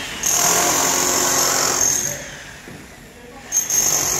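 A power tool running in two bursts: one lasting nearly two seconds, starting just after the beginning, and a shorter one near the end, with a high-pitched hiss over a rougher grinding noise.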